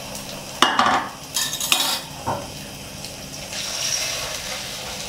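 Beaten egg frying in a non-stick wok with a faint steady sizzle. In the first two seconds come a few short scraping clatters of the pan and utensil as the egg is swirled round the wok.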